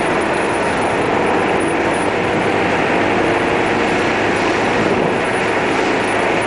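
Car driving at a steady speed, heard from inside: a constant drone of engine and tyre noise on the asphalt, with no change in pitch or loudness.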